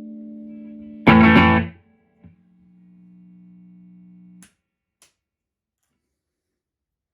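Overdriven electric guitar, a Fender Jazzmaster on its bridge pickup played loud through a Supro Thunderbolt MkII amp. A held note fades, then a loud strummed chord about a second in is choked off after about half a second. A faint low note rings on until about four and a half seconds, followed by two short clicks.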